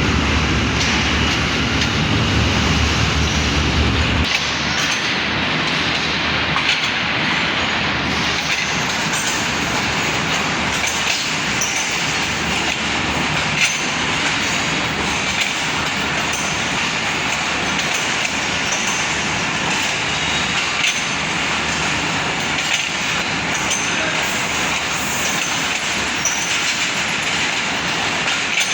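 Passenger train rolling past along the platform: a heavy low rumble that drops away about four seconds in, then the steady rolling noise of coach wheels on the rails with scattered light clicks and brief squeaks.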